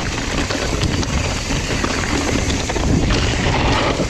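Mountain bikes being ridden down a rocky drop on a downhill trail: a loud, steady rush of tyre and trail noise with wind on the microphone.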